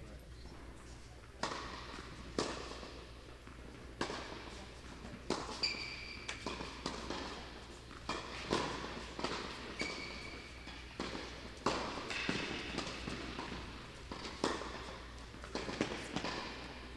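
Tennis rally: a ball struck by rackets and bouncing on the court, a string of sharp hits at irregular intervals of about a second.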